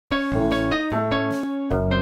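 Intro theme music played on keyboard, with chords and a bass line moving every fraction of a second. It starts abruptly just after the beginning.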